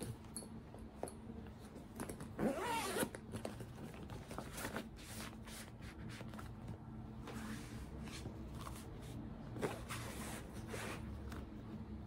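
Zipper on an Adidas Airliner bag being pulled, with rustling and handling of the bag; the loudest zip comes about two and a half seconds in.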